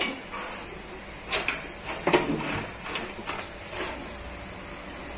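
Scattered metallic clanks and clinks, about half a dozen over two and a half seconds, the loudest about two seconds in, as the chain-hoisted truck engine and its chains are worked into place.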